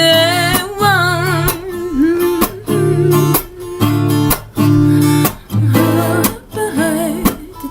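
Acoustic guitar strummed in a steady rhythm of repeated chords, with a singing voice over it that trails off about a second and a half in.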